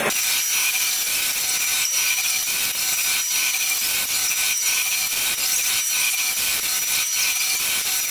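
CNC router spindles milling a foam block, heard in fast motion: a steady high whine over a cutting hiss, with frequent irregular ticks.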